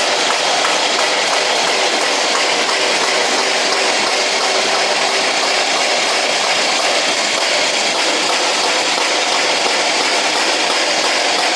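Doosan excavator running steadily, its engine and hydraulics making a loud, even noise with a faint steady hum underneath.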